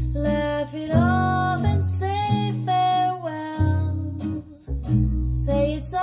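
Instrumental break of a swing-jazz song: a guitar plays a melody with small pitch bends over low bass notes that change about once a second. It is heard through hi-fi stand-mount speakers.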